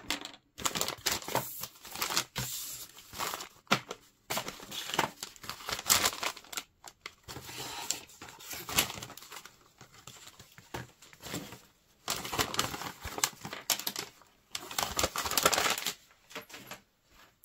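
Pink plastic blind-bag wrappers of a Mini Brands toy set being torn open and crumpled, with irregular bursts of crinkling and rustling and a short lull about ten seconds in.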